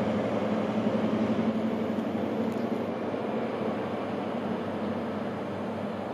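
Diesel engine of an HST Class 43 power car running with a steady drone as the train moves off, slowly fading.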